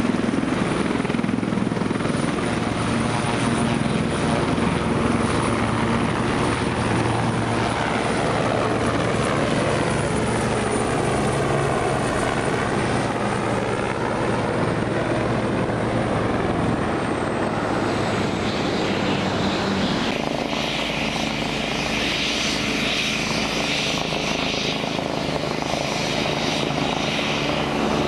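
Helicopter turbine and rotor noise from a Eurocopter Écureuil flying low overhead, its high turbine whine dropping in pitch as it passes. About twenty seconds in the sound cuts to a different helicopter, an Agusta A109, hovering close with a steady turbine whine.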